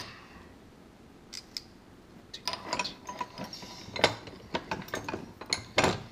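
Steel bench vise being worked to clamp a steel wrench: after a quiet start, a quick run of metal clicks and clanks sets in about two and a half seconds in, with a short metallic ring.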